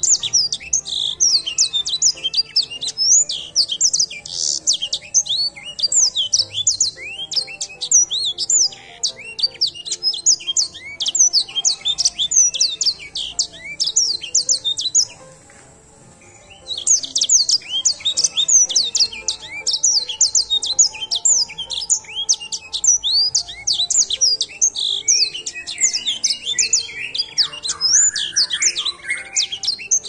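Edel sanger canary singing a fast, continuous run of high chirps and trills, broken off by a pause of about a second and a half around the middle before starting again; lower warbling notes join in near the end.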